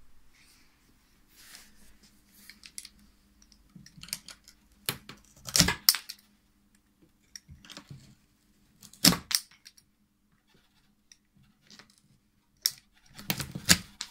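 Biedronka SZK05 ratchet lopper cutting through a thick branch: scattered clicks from the ratchet mechanism and sharp cracks as the blade bites into the wood. The loudest cracks come a little under halfway, about two-thirds in, and in a cluster near the end.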